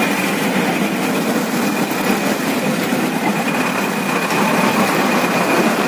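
Bus engine running, with cabin and road noise heard from inside the bus and a thin steady high whine over it.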